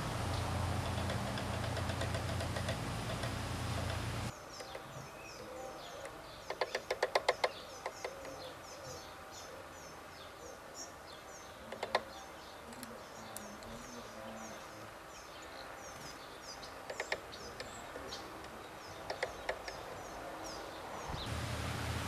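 Steady outdoor noise with a low hum for the first four seconds. It then drops to a quieter background where small garden birds give many short, high chirps. A quick run of about ten sharp taps comes about a third of the way in, with a few single taps later. The steady noise returns just before the end.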